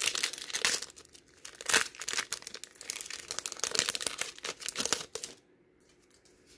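Foil Pokémon booster-pack wrapper crinkling and tearing as it is ripped open by hand: a run of crackling that stops about five seconds in.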